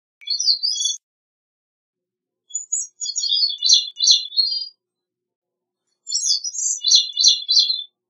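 Gray-cheeked thrush singing: three phrases of rapid high notes with short pauses between, a brief one at the start and two longer ones.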